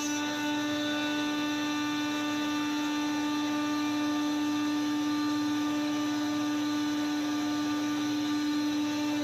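Sawmill machinery running with a steady hum at one unchanging pitch, without a cut being heard.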